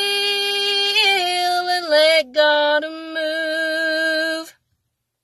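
A woman singing long held notes of a slow gospel song, with a short break in the middle; the singing stops about four and a half seconds in.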